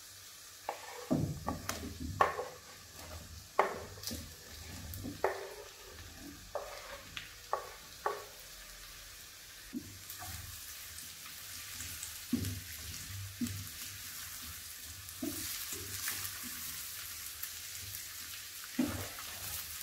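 Sliced mushrooms and chopped onions frying in butter and oil in a non-stick wok, stirred with a wooden spatula. A run of knocks and scrapes against the pan comes in the first half, and the sizzling grows louder in the second half.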